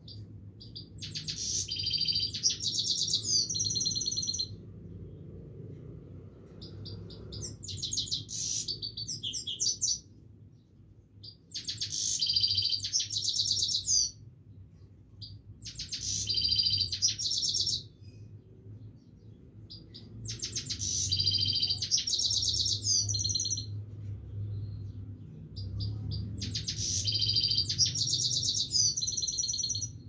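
Himalayan goldfinch singing in a cage: six bouts of rapid, high twittering song, each a few seconds long, separated by short pauses. A faint low hum runs underneath.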